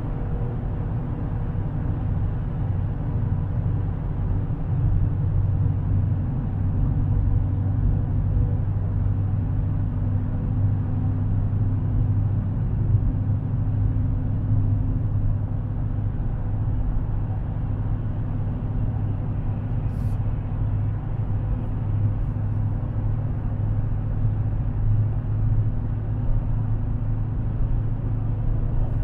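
Dodge Challenger Widebody's V8 cruising at steady highway speed, heard inside the cabin as a low, even drone with tyre and road noise. A single sharp click about two-thirds of the way through.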